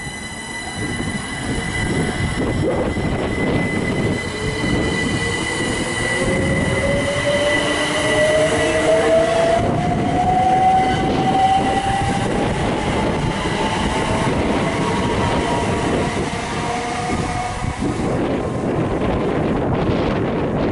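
Great Northern Class 387 Electrostar electric multiple unit pulling away along the platform. Its traction motor whine rises in pitch as it accelerates, over a steady high whistle and the rumble of wheels on rail.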